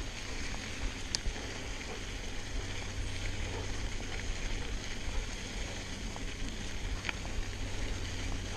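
A 2014 Giant Trance Advanced SX mountain bike rolling along a dirt trail: a steady rush of tyre noise on dirt and gravel, with wind rumbling on the camera's microphone. There are faint clicks about a second in and again near the seven-second mark.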